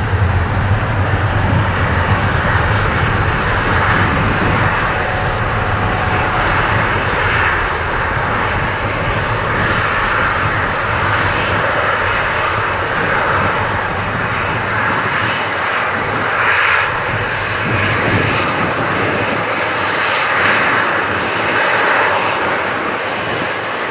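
Boeing 777 twin jet engines running at takeoff thrust, a steady roar through the takeoff roll and lift-off on a wet runway. Its deep low rumble thins out in the second half as the jet climbs away.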